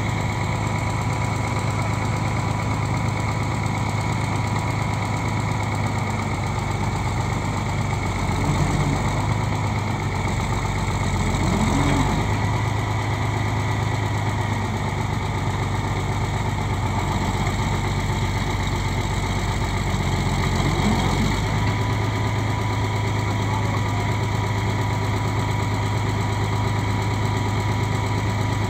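Diesel engine of a Caterpillar crawler tractor running steadily as it slowly pushes a vintage harvester onto a trailer. Its tone deepens for a stretch of about a dozen seconds in the middle while it works.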